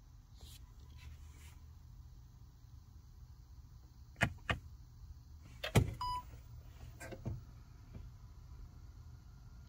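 A few sharp clicks and knocks in the car cabin, then a short electronic beep about six seconds in, over a low steady hum.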